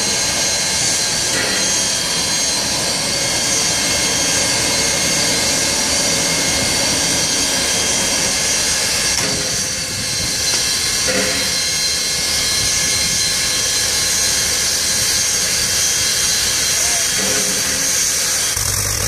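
NSW 32-class steam locomotive 3265 standing with steam up, giving a steady hiss of escaping steam with a few high tones in it and a low rumble beneath.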